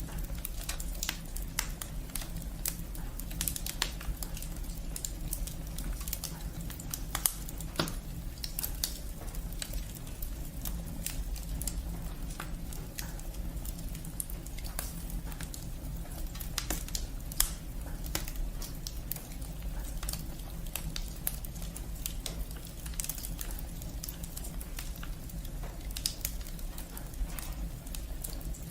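Firewood burning, crackling with many irregular sharp pops over a steady low rumble.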